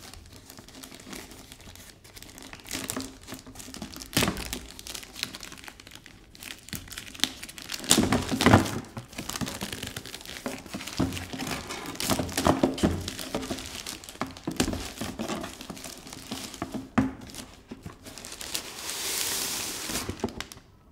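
Plastic poly mailer bag crinkling and rustling in irregular bursts as it is handled and opened, loudest about eight seconds in, with a longer, even rustle lasting about two seconds near the end.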